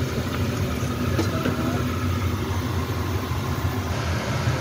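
A machine running with a steady low rumble.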